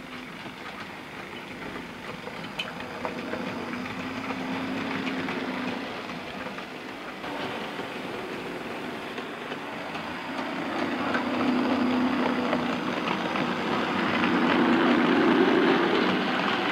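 OO gauge model Class 35 Hymek diesel locomotive running with its freight train: an electric motor hum with wheels clicking over the rail joints. It grows louder in the second half as the train comes round close by, the hum rising in pitch near the end.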